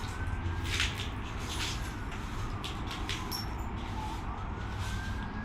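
A distant siren wailing, its pitch sliding slowly up, down and up again, over a steady low rumble, with a few sharp knocks about a second in and near the middle.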